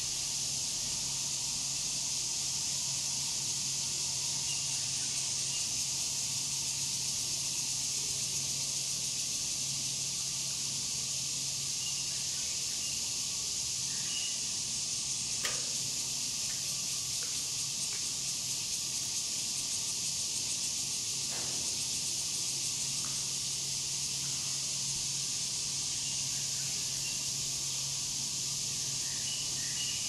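Steady high-pitched insect chorus over a low steady hum, with a sharp click about halfway through.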